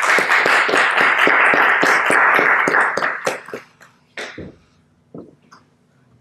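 Audience applauding, a dense patter of many hands that dies away about three and a half seconds in, followed by a few last claps and a single low bump.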